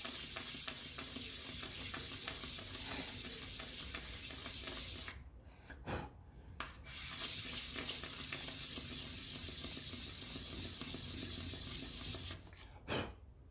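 A wood-and-brass ring rubbed back and forth by hand on a sheet of 1200-grit sandpaper laid flat, a steady scratchy rasp. It breaks off for about a second and a half around five seconds in, with a couple of light clicks, then resumes and stops near the end.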